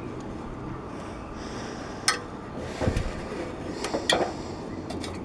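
A few sharp knocks and clinks over a low background, about two seconds in, near three seconds and twice around four seconds, from a person climbing a ladder.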